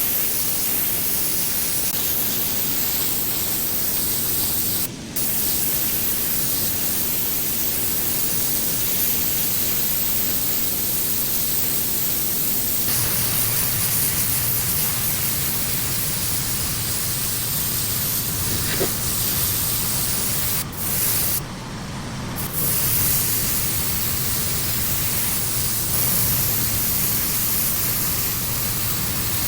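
Pressure washer spraying a driveway, a steady loud hiss of high-pressure water, with brief breaks about five seconds in and again around twenty-one seconds in. A low machine hum grows stronger about halfway through.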